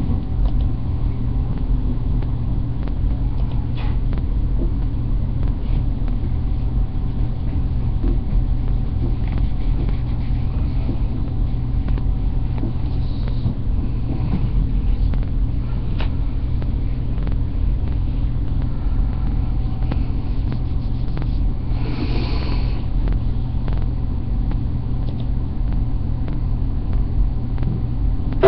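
Steady low rumble of room noise through a webcam microphone, with a few faint clicks and a brief soft hiss near the end.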